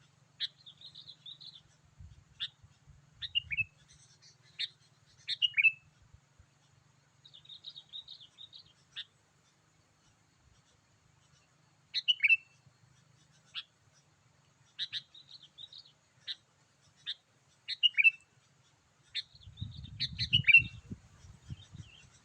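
Sooty-headed bulbul calls: short bubbly chattering phrases and sharp down-slurred notes, given in bursts separated by pauses of a second or more. A low rumble joins near the end.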